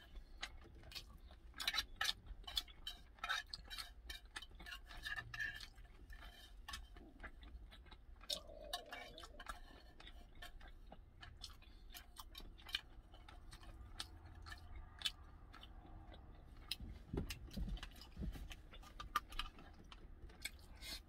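Chopsticks clicking and scraping against an opened metal tuna can, many small irregular taps, with chewing in between.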